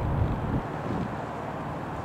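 Rockwell Commander 114 light aircraft passing overhead, its single piston engine and propeller a steady drone that fades about half a second in as it moves away. Wind buffets the microphone.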